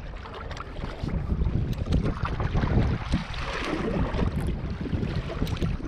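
Wind buffeting the microphone, with choppy lake water splashing against the side of a small boat.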